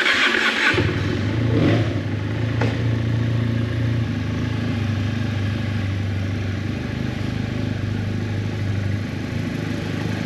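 Motorcycle engine cranked by its starter and catching within the first second, then idling steadily at an even pitch in an underground car park.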